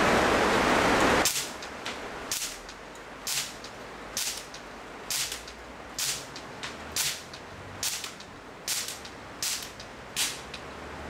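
Evanix Giant PCP air rifle firing in semi-automatic: about eleven sharp shots, roughly one a second. A loud steady rushing noise cuts off suddenly just before the first shot.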